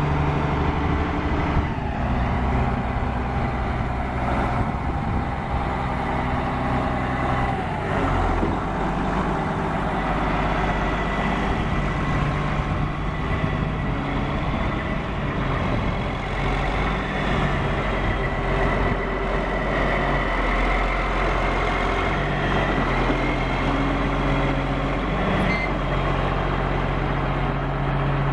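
Caterpillar 160H motor grader's diesel engine running steadily, its note shifting about eight seconds in, with a faint high whine over it.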